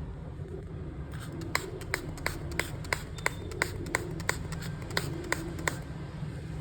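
A series of about a dozen sharp taps or clicks at an even pace, about three a second, over a steady low hum.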